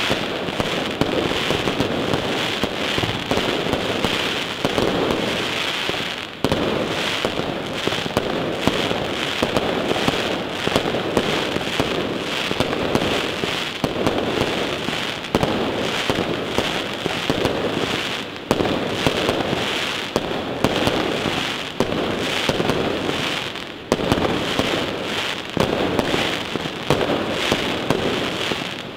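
Fireworks display: a continuous run of bangs and crackling as aerial shells burst overhead. The loudness sags briefly a few times, then jumps back with fresh bursts.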